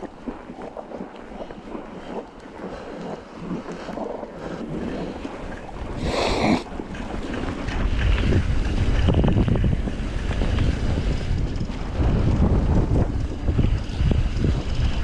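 Mountain bike tyres crunching through snow, with wind buffeting the microphone, which grows much louder from about eight seconds in. A brief loud scrape or rattle about six seconds in.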